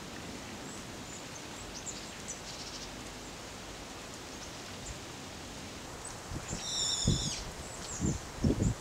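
Quiet woodland ambience with scattered short bird chirps. About six and a half seconds in, a louder bird call lasts under a second, and a few low thumps follow near the end.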